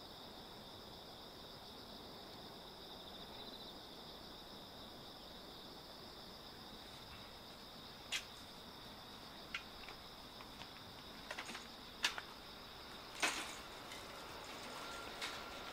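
Faint, steady chirring of insects in the grass at two high pitches, broken by a few sharp clicks in the second half. Near the end the rumble of an approaching electric freight train starts to rise.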